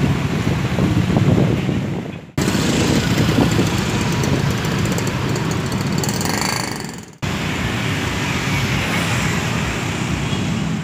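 Busy street traffic: a steady mix of motorcycle and car engines passing close by. The sound fades out and starts again abruptly twice, about two and seven seconds in.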